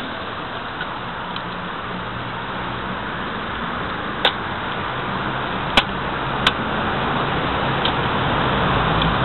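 Street traffic: cars driving past on the road, a steady rumble of engines and tyres that grows louder near the end. Three sharp clicks stand out in the middle.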